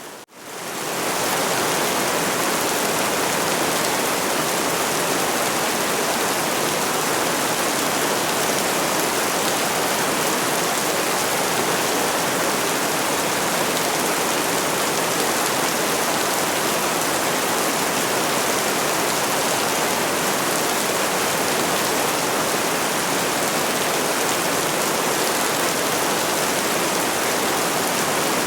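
Steady rain falling, an even dense hiss with no distinct drops or thunder, fading in over about the first second.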